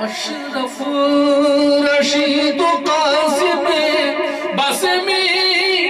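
A man singing a devotional Urdu kalam into a microphone, drawing out long held notes that waver and glide in pitch.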